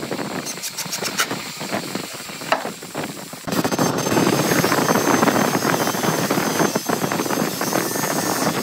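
A few light clicks and taps, as a screw is fitted onto a cordless driver's bit, then a loud steady hiss of noise that starts abruptly about three and a half seconds in and holds steady.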